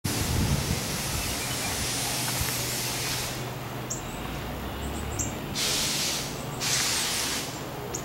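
Open-air ambience: a rushing hiss with a low rumble underneath. The hiss swells twice past the middle, for about a second each time. A few short, high bird chirps come through.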